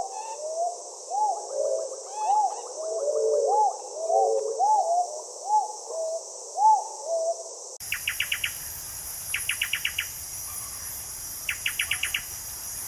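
Andaman cuckoo dove giving a run of short rising-and-falling coos over a steady high insect drone. About eight seconds in, the sound changes abruptly to four short rapid trills, about two seconds apart.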